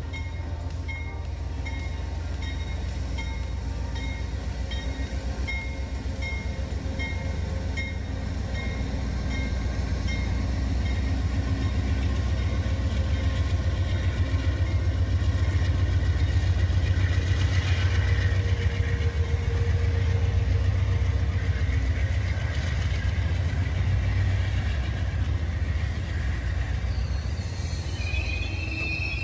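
Amtrak GE Genesis P42DC diesel locomotive passing close by with its engine running, followed by Superliner passenger cars rolling past with wheels clicking over the rail. The sound swells to its loudest about two-thirds through, with a repeating ding in the first several seconds.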